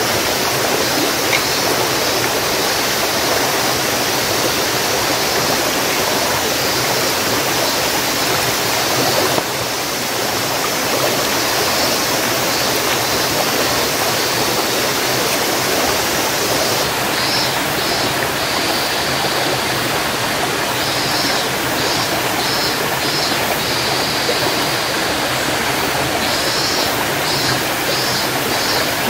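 Shallow rocky stream rushing steadily. In the second half, groups of short, rapid high-pitched chirps come and go over the water.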